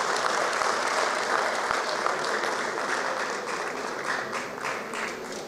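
Audience applauding: many hands clapping together, slowly dying down toward the end.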